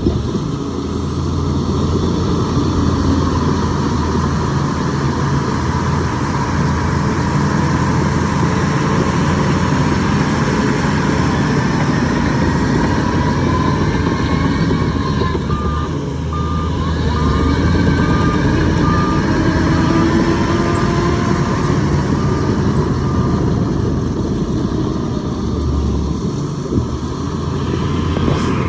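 Heavy diesel machinery running steadily, with a reversing alarm beeping about once a second for several seconds in the second half.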